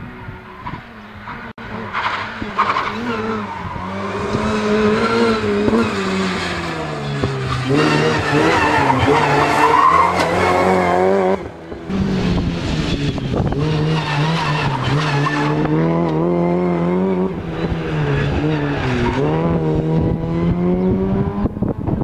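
Rally car engines at high revs, the pitch rising and falling as the cars accelerate, shift gear and lift off. About halfway through the sound cuts to another car, which runs on at high revs with the pitch wavering up and down.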